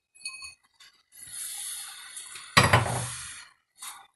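Roasted cashews and raisins being emptied from a small pan into a steel pan of kesari: light clicks, a scrape, then one loud knock of the small pan against the steel pan about two and a half seconds in.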